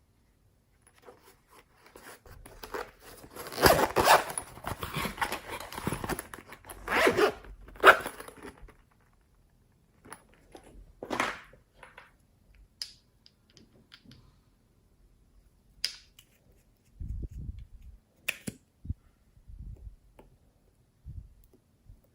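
Slime being worked by hand, giving a sticky crackling noise for the first eight seconds or so, then scattered short pops and clicks.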